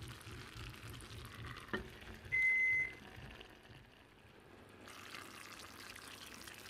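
Vegetable tajines simmering in clay pots, a faint steady bubbling. About 1.7 s in comes a sharp click as the clay lid is set back on, then a single short, high, steady tone, like a beep, lasting about half a second.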